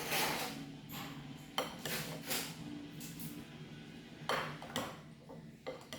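Metal cutlery clinking and scraping against plates and bowls, in about eight irregular sharp strikes with short bright ringing, as food is handled and served.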